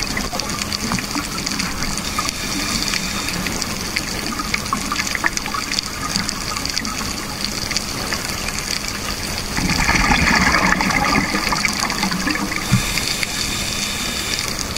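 Scuba regulator exhaust bubbles heard underwater: a steady bubbling wash of exhaled air, with a louder burst of exhalation starting about ten seconds in and lasting about three seconds.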